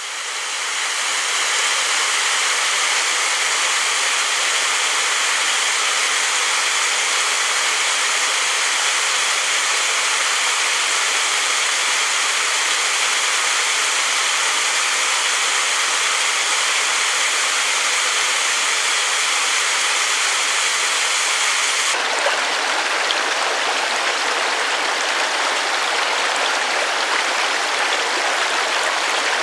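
Mountain stream water rushing steadily. About 22 seconds in, the sound of the water changes abruptly in tone.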